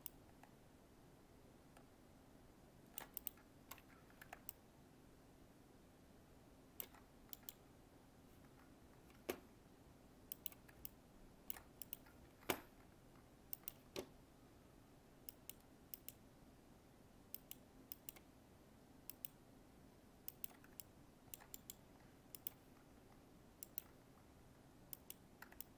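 Faint computer mouse clicks at an irregular pace, often in quick pairs or small runs, over a low steady hum.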